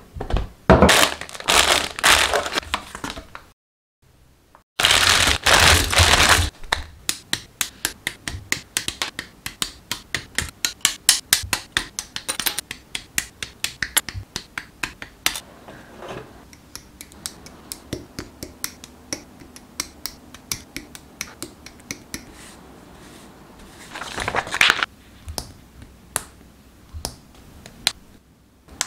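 Plastic packaging crinkling and rustling as the Gunpla kit box is opened. Then comes a long run of sharp clicks, several a second, as hobby nippers snip the HG 1/144 Gundam Hajiroboshi's plastic parts off their runners. Later, sparser clicks come as the parts are pressed together.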